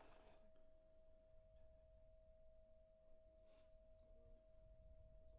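Near silence with a faint, steady pure tone held at one pitch.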